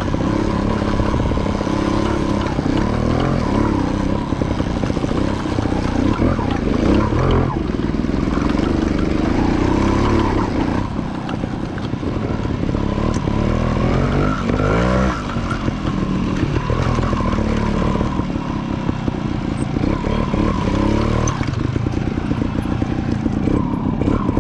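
Trials motorcycle engine running continuously while riding, its revs rising and falling repeatedly as the throttle is worked.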